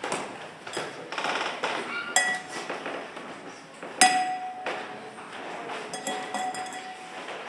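Clinks and pings from something small being struck, each leaving a short clear ringing tone. The loudest strike is about four seconds in, with a weaker one about two seconds in and another held ring near the end.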